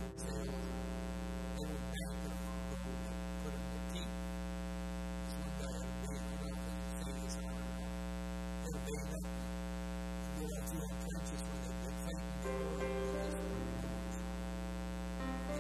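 Steady electrical mains hum, a low buzz with a ladder of overtones that holds unchanged.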